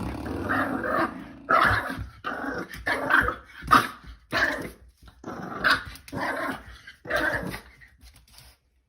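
A dog growling and barking in a run of short, repeated bursts, stopping shortly before the end.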